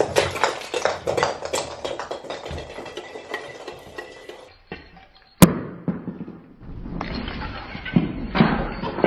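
Rustling of artificial Christmas tree branches with baubles knocking and clinking as a cat is pulled off the tree by hand. There is a single sharp click about five seconds in, then duller, muffled knocks and rustling.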